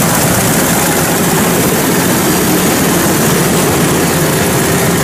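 Kubota DC-105X combine harvester running steadily as it cuts rice, its diesel engine and threshing machinery heard close up from on board as a loud, even drone with a low hum.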